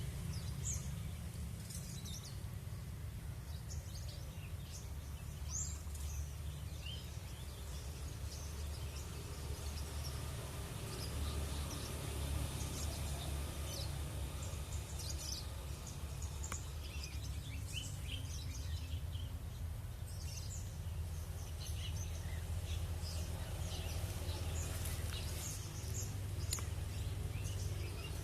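Many small wild birds chirping and calling over one another, short high chirps scattered throughout, over a steady low rumble.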